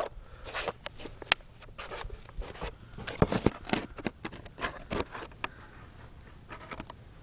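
Irregular rustling, scraping and knocks of handling in grass and dry leaves as the camera is moved and set down on the ground, with a cluster of heavier knocks about three to four seconds in.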